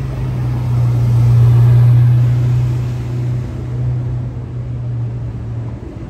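Ferrari F8 Tributo's twin-turbo V8 running at a low, steady engine note as the car drives slowly past. It is loudest about two seconds in, then fades as the car pulls away up the street.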